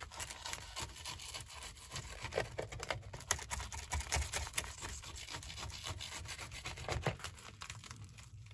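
Kitchen knife sawing through a crisp quesadilla on a paper plate: irregular scraping strokes of the blade through the tortilla and against the plate.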